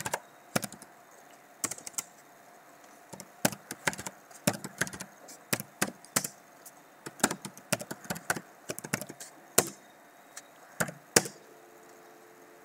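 Keystrokes on a computer keyboard: irregular runs of clicks as numbers are typed in, stopping about a second before the end.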